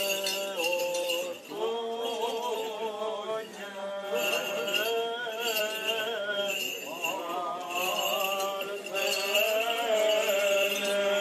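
Greek Orthodox Byzantine chant: a voice sings a slow melody, holding long notes and sliding between pitches.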